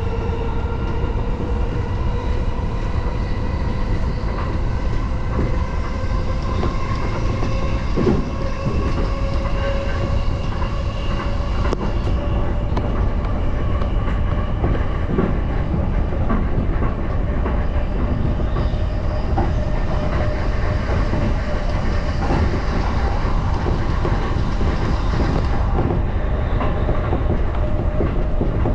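JR Yokohama Line electric commuter train running between stations, heard from inside the car: a steady rumble of wheels on rail with a motor whine slowly rising in pitch, and scattered clicks of wheels over rail joints.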